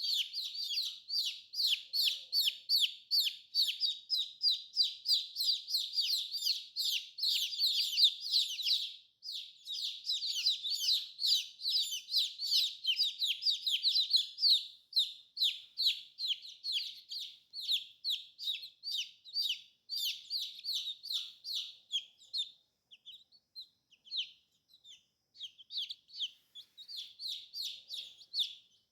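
Baby chicks peeping: a fast, continuous run of short high peeps, each falling in pitch, several a second, with a brief pause about nine seconds in and fewer, sparser peeps toward the end.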